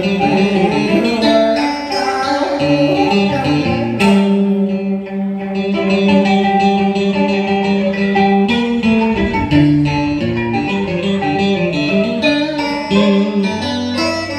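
Live electric guitar playing a plucked melodic line, with a long held note in the middle, accompanying a Vietnamese song excerpt alongside a second stringed instrument.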